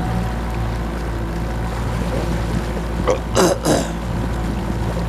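Tour boat's engine running steadily with a low hum. About three seconds in, two short loud bursts stand out above it.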